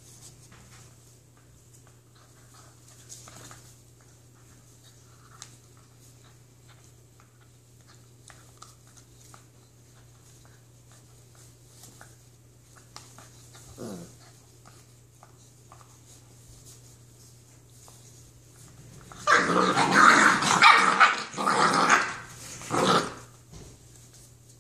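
Two Labrador puppies tugging at a rope toy: faint scattered clicks of claws on tile, one short growl about halfway through, then near the end a loud run of play growls and barks lasting about four seconds.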